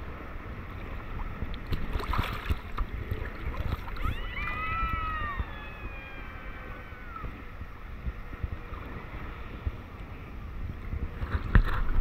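Jet airliner passing low overhead: a set of engine whine tones that rise and then slowly fall in pitch over about three seconds. Underneath is a steady rumble of water and wind at a camera floating on the sea surface. Near the end, water splashes and slaps against the camera.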